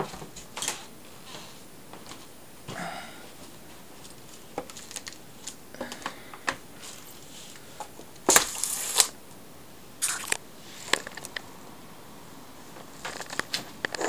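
Handling noise from the camera being moved about and window blinds being brushed: scattered clicks and rustles, with a longer, louder scraping rustle about eight seconds in, a shorter one about ten seconds in, and a cluster of clicks near the end.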